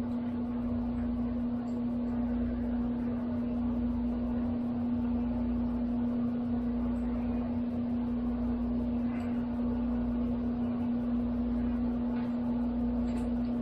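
A steady mechanical hum with one constant tone over a low rumble, with a few faint ticks near the end.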